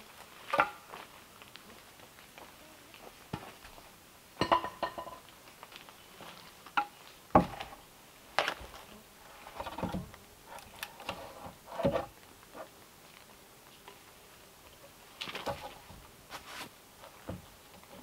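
Irregular wooden knocks and clacks, a dozen or so spread out with quiet pauses between them, as a piece of wood is handled and set against the top of a log cabin's plank door.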